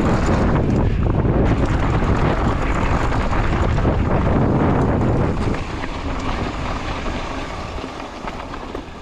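Downhill mountain bike riding fast over a dirt and gravel trail: tyre rumble and rattling of the bike mixed with wind rushing over the camera's microphone. The noise drops noticeably about halfway through as the bike slows on a flatter stretch.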